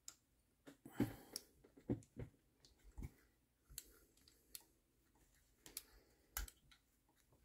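Faint, irregular metal clicks and taps from handling a small model nitro engine as its stubborn connecting rod is worked off the crankpin by hand.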